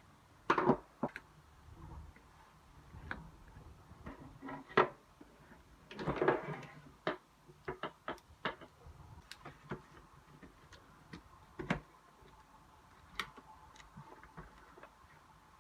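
Irregular clicks and clacks of plastic parts on a mechanical keyboard, with two short scraping sounds about half a second and six seconds in.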